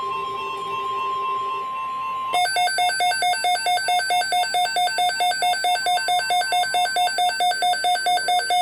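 NOAA Weather Radio's steady warning alarm tone, which cuts off about two seconds in and gives way to louder, rapid electronic beeping, about four beeps a second, from an alert receiver's alarm. The tone signals an incoming weather alert.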